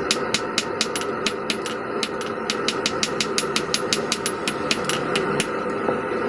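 Power hammer striking hot medium-carbon steel bar stock in rapid, even blows, about five a second, over a steady background hum.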